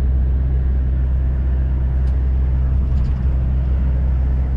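Lorry's diesel engine running at steady speed, heard from inside the cab: a steady low drone with road noise over it.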